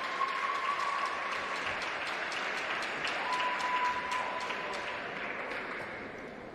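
Audience applause, many hands clapping, fading toward the end. A steady high tone sounds over it twice, at the start and again around the middle.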